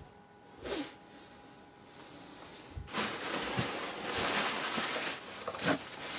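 Tissue paper rustling and crinkling as hands rummage through the packing in a cardboard box, loudest and densest for about two seconds from halfway through.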